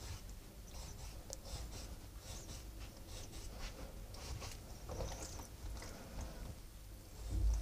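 Chef's knife scoring the skin of a raw duck breast on a wooden cutting board: faint, scattered short cutting and scraping strokes, with a low thump near the end.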